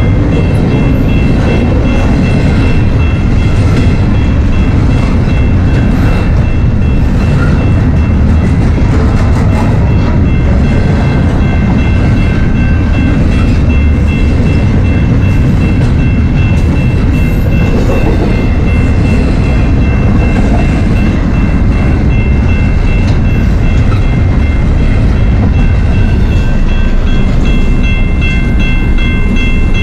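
Double-stack intermodal container train rolling through a grade crossing: a loud, steady rumble of wheels on rail with faint clicks from the wheels crossing rail joints. Over it, the crossing's warning bell rings as a steady high tone throughout.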